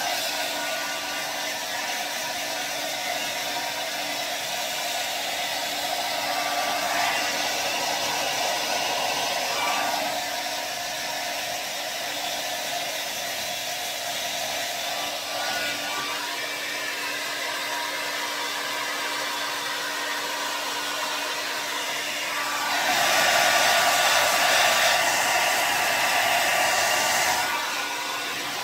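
Handheld hair dryer blowing hair dry: a steady rush of air over a faint steady hum, growing louder for a few seconds near the end.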